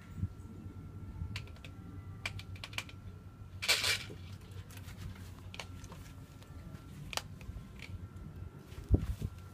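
Handling noise from a phone held in the hand: scattered light clicks and taps, a brief louder scraping rustle about four seconds in, and a low thump near the end.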